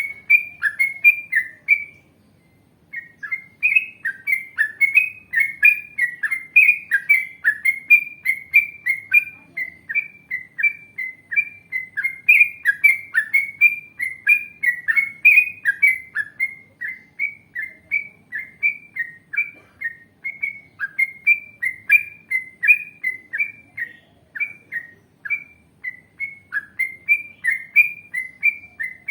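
Yellow-vented bulbul (trucukan) singing a long, fast run of short whistled notes, about two or three a second, with a short pause about two seconds in. Faint high twittering comes and goes above it.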